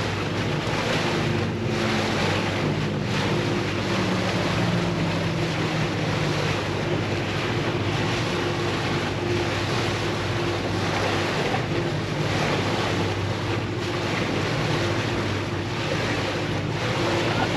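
Boat engine running with a steady hum, under wind buffeting the microphone and water rushing past the hull.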